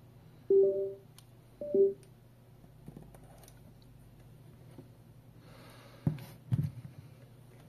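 Two short electronic beeps from the bone-conduction earphones as their button is pressed, a little over a second apart. Two knocks follow near the end as a smartphone is set down on the mat.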